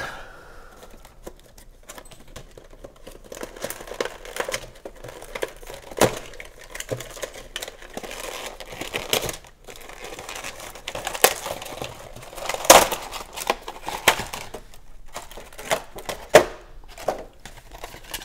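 Clear plastic blister pack of an action figure being pulled open by hand: crinkling and crackling plastic with scattered sharp snaps, the loudest about two-thirds of the way through.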